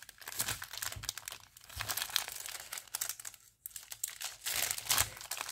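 Small plastic bags of diamond-painting drills crinkling and rustling as they are handled, with a brief pause about three and a half seconds in.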